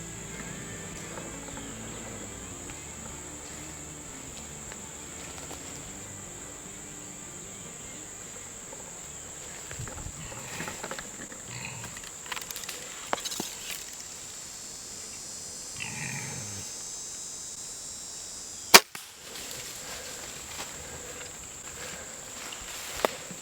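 Insects chirring steadily in the woods, a hog's brief call about 16 seconds in, then the single sharp snap of a bow shot at a hog, the loudest sound, near the end.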